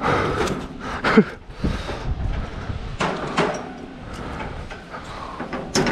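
Steel mesh construction fence panels clanking and rattling as they are gripped and climbed, with scuffs of shoes. Several sharp knocks are spread through, the loudest about a second in.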